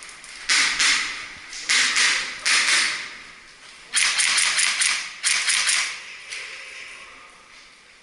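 Airsoft gun firing four short bursts of rapid clicking shots.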